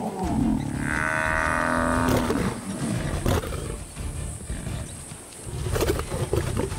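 Lionesses growling and snarling while attacking a Cape buffalo, with one drawn-out pitched call about a second in, over background music.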